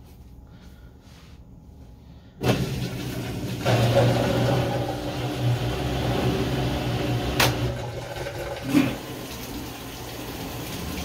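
GE top-load washer starting its rinse phase: after a couple of quiet seconds, water suddenly starts rushing with a low motor hum. A sharp click comes near the end, the hum then stops, and the water keeps running.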